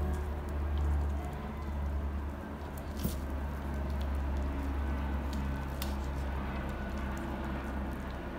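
Black kitten gnawing and biting at a cooked corn cob held in a hand: wet squishing with a few sharp crunches, over a steady low rumble.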